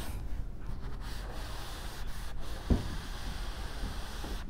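Cloth chalkboard duster rubbing back and forth over a chalkboard, wiping off chalk, with one brief low thump about two and a half seconds in.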